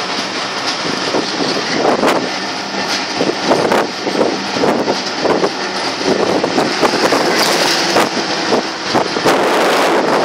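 Passenger train running across a bridge, heard from its open window: a loud steady rush of train noise and wind on the microphone, broken by many irregular clatters and buffets.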